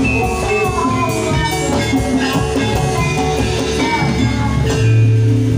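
Javanese gamelan music accompanying a jathilan dance: drums beating under ringing metallophone melodies. A deep, low note swells near the end.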